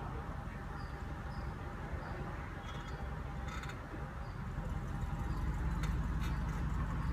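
Mercedes CLS 500's engine running at idle, a steady low rumble that grows louder about four and a half seconds in, with a few light clicks over it.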